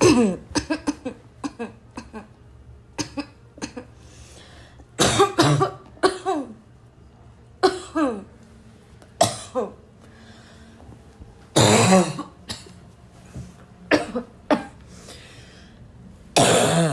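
A person in a loud, barking coughing fit: a quick string of coughs at the start, then hard single coughs every couple of seconds, the longest and loudest about twelve seconds in and another near the end.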